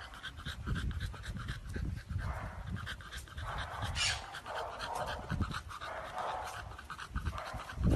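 Chow chow puppy panting with its mouth open, in a run of breaths about one a second, with scattered clicks and low thumps underneath.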